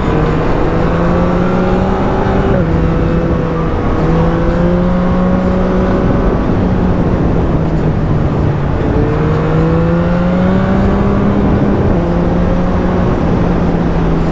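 Yamaha MT-09's three-cylinder engine under way, its pitch climbing as it accelerates and dropping at gear changes: a rise cut off a few seconds in, a longer climb, a short lull in the middle, then another climb.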